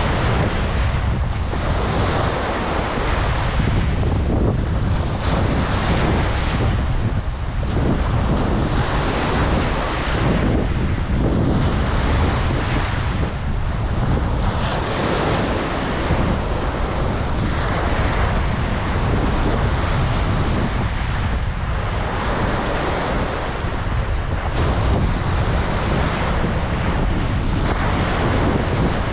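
Ocean waves breaking and washing on a beach, in slow swells every few seconds, with a steady rumble of wind on the microphone underneath.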